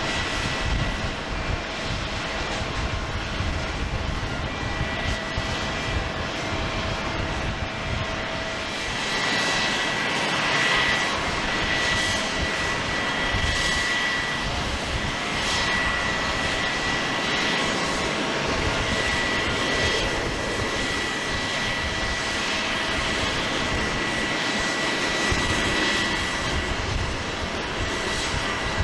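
Jet engines of Boeing 737-800 airliners (CFM56-7B turbofans) running steadily: a broad rush with a high whining tone over it. The sound changes about nine seconds in, where one aircraft gives way to another.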